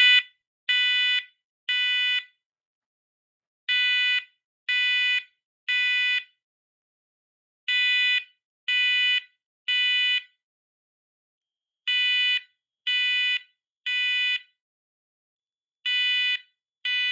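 First Alert SMCO500V smoke and carbon monoxide alarm sounding on test: loud beeps in groups of three, about a second apart, with a short pause between groups. This is the temporal-three pattern that signals smoke.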